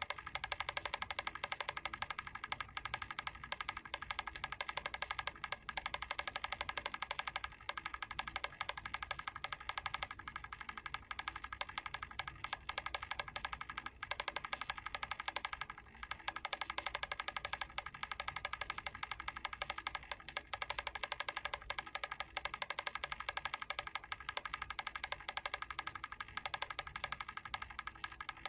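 Mechanical timer switch ticking in a rapid, even run of small clicks that does not let up.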